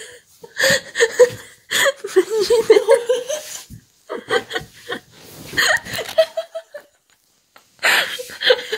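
A young woman laughing hard in fits. The laughter breaks off for about a second near the end, then starts again.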